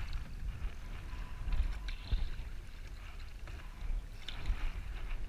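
Choppy water lapping and splashing against the side of a canoe, with a few louder splashes about two seconds in and again past four seconds. Wind rumbles on the microphone underneath.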